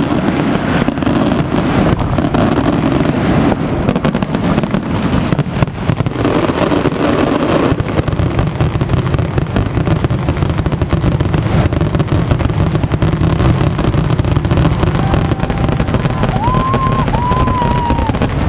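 Loud, dense fireworks barrage: a continuous rapid crackle of many aerial shells and glitter stars bursting at once, over a steady low rumble.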